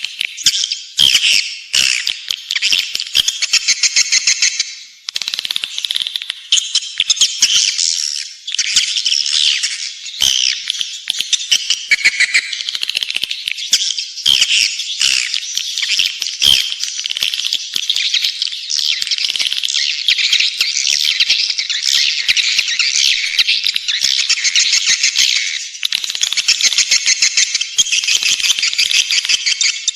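Edible-nest swiftlet calls played as a lure: dense, continuous high-pitched twittering chatter mixed with fast rattling clicks, with a short dip about five seconds in. It is a 'panggil walet' sound, broadcast from swiftlet houses to draw swiftlets in to roost and nest.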